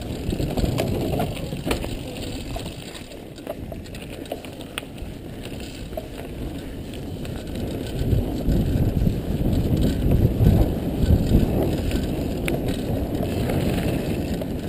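Mountain bike riding fast down a gravel forest trail: wind rushing over the microphone and tyres rolling on loose gravel, with scattered sharp rattles and clicks from the bike over bumps. It gets louder about halfway through.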